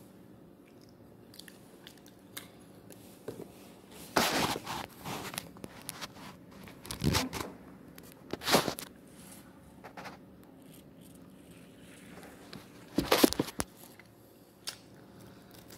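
Close-up eating: four loud crunchy bites and chewing of the last of the food, with quiet pauses between them.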